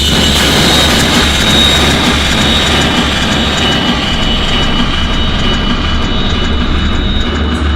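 Live electronic noise performance: a loud, dense noise drone with a steady low hum underneath and two thin, steady high tones above. The highest hiss thins out about six seconds in.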